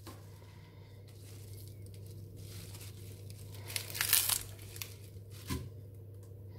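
A celery stalk and its leafy top being snapped and torn apart by hand: crisp crackling and tearing, loudest about four seconds in. A short sharp click near the end as pieces drop into a stainless steel pot.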